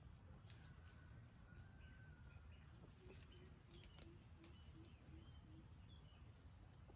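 Faint, near-silent outdoor quiet with a run of about eight soft, low clucks, roughly three a second, from a wild red junglefowl rooster foraging. A few faint clicks and high bird chirps sound around it.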